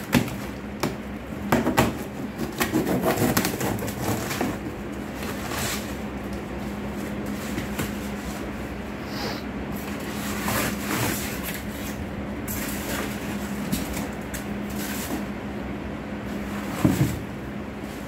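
Cardboard parcel being unpacked by hand: a box cutter scraping through packing tape and cardboard flaps being pulled back, then crinkly plastic wrapping rustling as the contents are lifted out. A sharp knock comes near the end, over a steady low hum.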